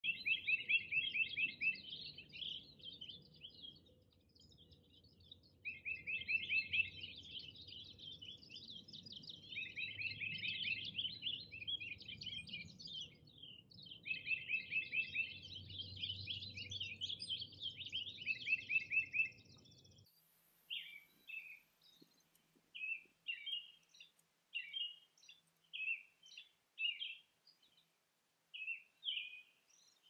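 Wild songbirds singing over a low steady rumble: a song that opens with a quick run of repeated notes and breaks into a warble, repeated every few seconds. After about twenty seconds it cuts to quieter surroundings, where short single chirps repeat about once a second.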